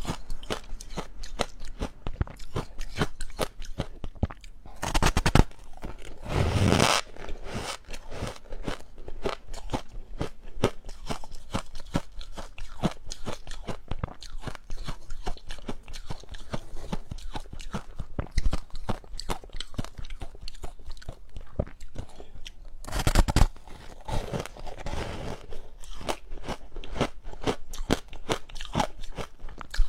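Close-miked chewing of ice: a dense, continuous run of crunches, with louder, longer bursts of crunching about five seconds in and again a little past twenty seconds, where fresh pieces are bitten into.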